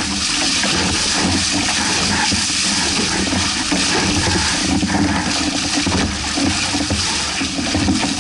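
Water rushing and splashing along the twin hulls of a Hobie 16 catamaran as its bows cut through choppy waves. The sound is a steady, continuous wash.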